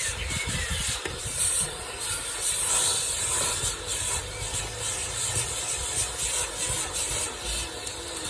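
Vacuum cleaner running while hoovering a car's interior: a steady suction hiss that swells and dips as the nozzle is moved about.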